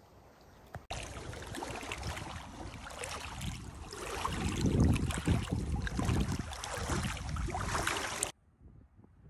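Wind and lake water lapping at the shore: a steady rushing noise with gusts rumbling on the microphone. It cuts in sharply about a second in and stops abruptly near the end.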